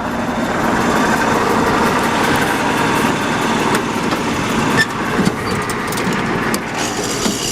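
T-150K tractor's diesel engine running steadily.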